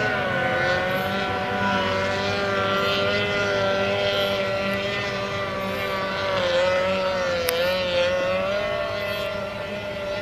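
Racing boat's outboard engine running at high revs, a steady high whine. Its pitch drops slightly about half a second in and wavers around six to eight seconds in. A single sharp click comes about seven and a half seconds in.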